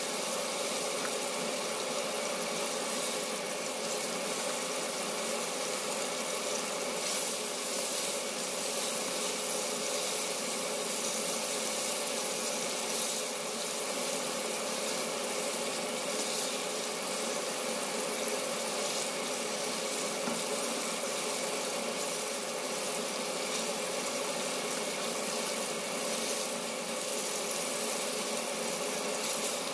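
Chicken deep-frying in hot oil, a steady sizzling hiss with light crackling, over a steady hum.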